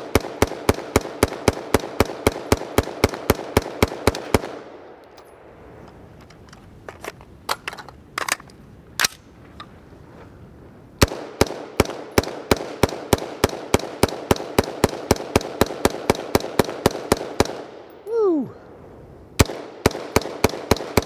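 Rapid semi-automatic fire from a BCM 5.56 mm direct-impingement AR-15, about five shots a second, in two long strings split by a pause of several seconds with a few clicks. Shooting starts up again near the end, after a short falling tone.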